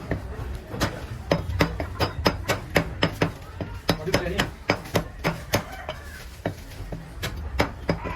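Cleaver chopping chicken into pieces on a chopping block: a fast, uneven run of sharp chops, about two or three a second, with a short pause about six seconds in.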